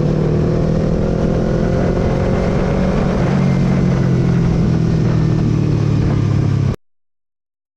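Motorcycle engine running steadily while riding at around 45–50 km/h, over a rush of wind and road noise. It cuts off abruptly near the end.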